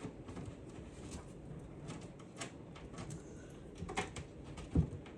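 Light clicks and taps of a console plate being handled and tried into place, with one louder knock near the end.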